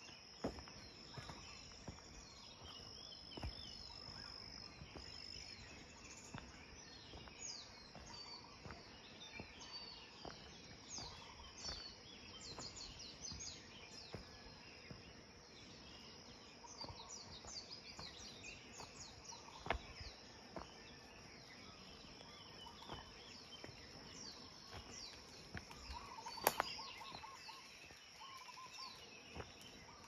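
Forest ambience: many small birds chirping in short, quick calls over a steady high-pitched insect drone, with soft footsteps on a dirt trail and a few sharp clicks, the loudest late on.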